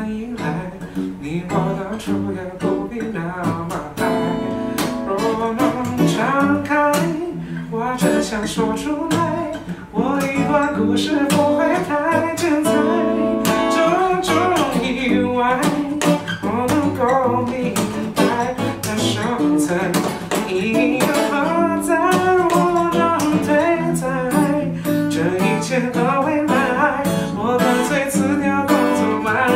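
Acoustic guitar strummed steadily while two men sing a Cantonese pop ballad together, live and unamplified; the strumming and singing grow louder about ten seconds in.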